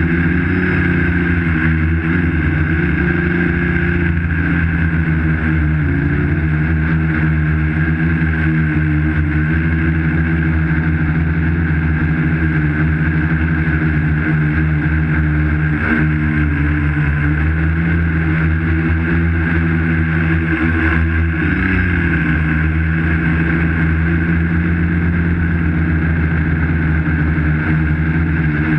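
Quadcopter's electric motors and propellers whirring steadily, heard up close from the GoPro mounted on the craft. The pitch wavers briefly about six seconds in and again a little past twenty seconds as the motor speeds shift.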